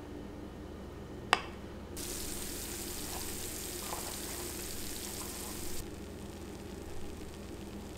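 A knife knocks once, sharply, on a wooden cutting board while slicing avocado. Then, from about two seconds in, the just-baked casserole sizzles in its hot cast-iron pan for about four seconds, starting and stopping abruptly.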